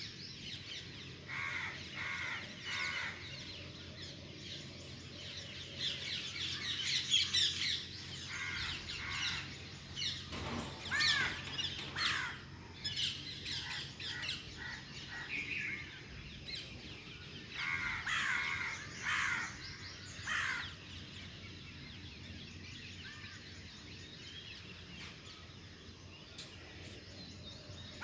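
Morning chorus of several birds chirping and trilling in overlapping calls, with crows cawing now and then.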